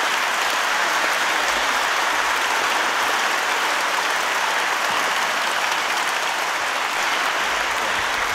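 Audience applauding steadily, many hands clapping at an even level throughout.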